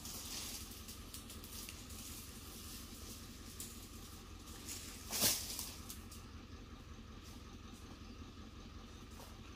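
Dry cut oil palm fronds rustling and crackling as they are handled and walked over, with one louder, brief swish about five seconds in.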